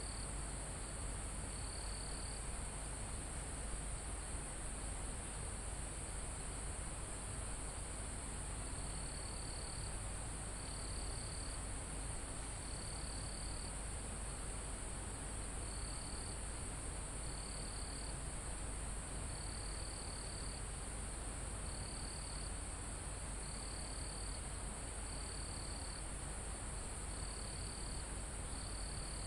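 Crickets and other insects calling in a forest: a continuous, very high-pitched trill, with a second insect chirping in short pulses of under a second, about one every one to two seconds, pausing for a few seconds early on and resuming near the middle.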